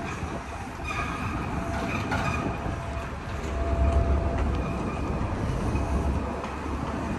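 Heavy vehicle rumbling, with several short high-pitched squeals and a longer thin whine near the middle; the rumble is loudest about four seconds in.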